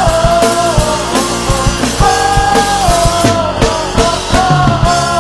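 Rock song with a steady drum-kit beat under a held melody line.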